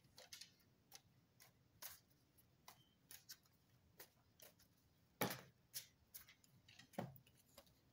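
Tarot cards being shuffled and handled by hand: a string of light, irregular clicks, with two louder knocks about five and seven seconds in.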